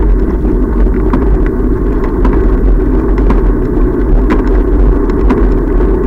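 Steady low rumble of wind and road vibration on the microphone of a bicycle-mounted camera while riding along a paved path, with light clicks now and then.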